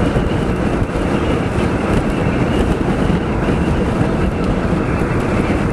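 Steady rush of road and wind noise from a moving car, with wind buffeting the microphone.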